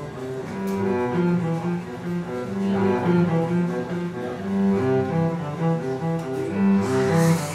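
Background music: a melody of sustained notes on low bowed string instruments.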